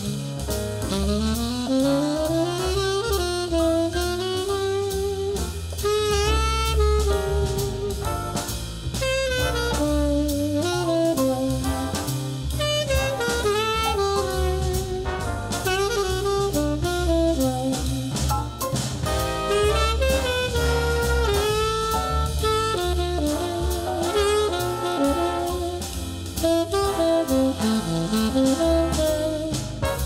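Jazz tenor saxophone playing a melody over drums and a low bass line, played back through Advent Laureate loudspeakers. About a second in, the saxophone slides upward into its phrase.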